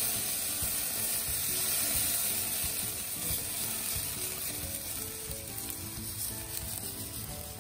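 Marinated whole chicken sizzling on the hot grate of a charcoal grill: a steady hiss that fades slowly.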